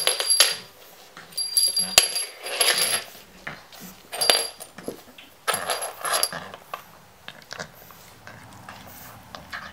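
Small brass jingle bell on a ribbon, jingling in short bursts as a French bulldog puppy carries and shakes it in its mouth. The jingling is quieter after about six seconds.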